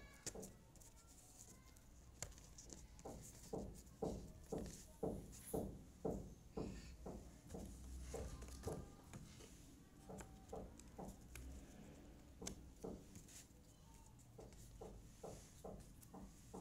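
Jigsaw puzzle pieces being picked up and set down on a table, with light scattered clicks. Two stretches of soft, evenly spaced low pulses, about two a second, come in a couple of seconds in and again near the end, and are the loudest sounds.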